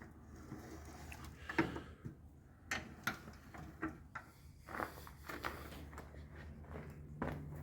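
Irregular light knocks and clicks, about eight, spaced unevenly, over a low steady hum.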